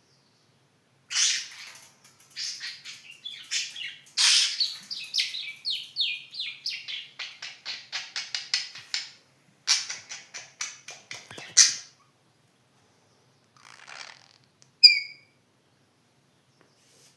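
Budgerigar chattering in runs of quick high chirps for about ten seconds. After a short pause comes one sharp chirp.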